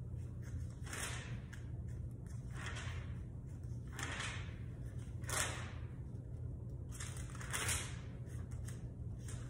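Pages of a Bible being turned by hand: a series of quick paper swishes and rustles, the loudest about five and a half seconds in and again near the end, over a steady low hum.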